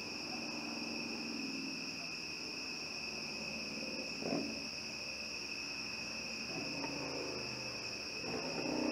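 Crickets chirping in a steady, unbroken trill, heard as two constant high-pitched tones, with a short low sound about four seconds in.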